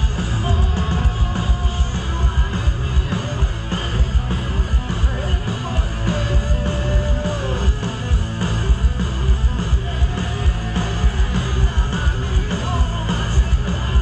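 Metalcore band playing live and loud: distorted electric guitars over pounding drums, with yelled vocals.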